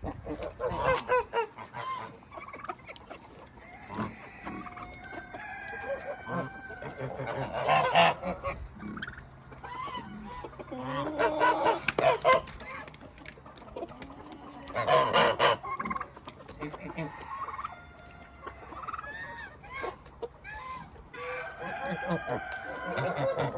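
Farmyard poultry calling: hens clucking and roosters crowing, mixed with geese honking. Several loud calls come every few seconds over continuous smaller clucks.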